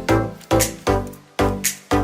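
Electronic background music with a steady beat, a kick drum hitting about twice a second.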